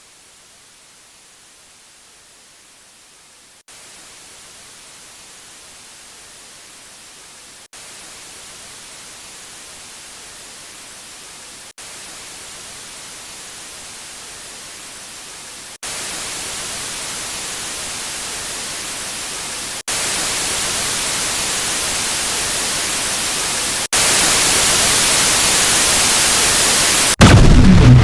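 Static hiss that gets louder in steps, a jump about every four seconds. Near the end it cuts to a much louder, distorted blast with a heavy low rumble.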